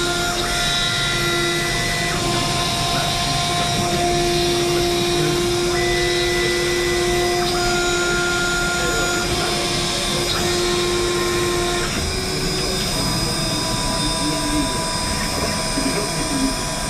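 CNC router running: a steady whir with several whining tones that change pitch and start and stop every second or two.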